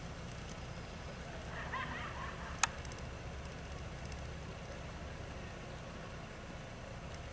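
Steady low outdoor rumble, with a brief faint warbling sound about a second and a half in and a single sharp click just after it.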